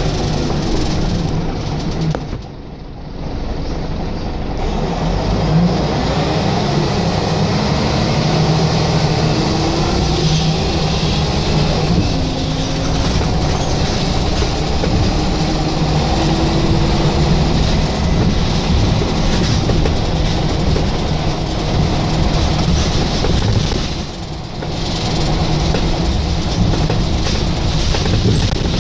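Scania L94UB single-decker bus heard from inside the passenger saloon while under way: diesel engine running with road noise. The engine note rises several times as the bus pulls, and the sound eases off briefly about two seconds in and again near the end.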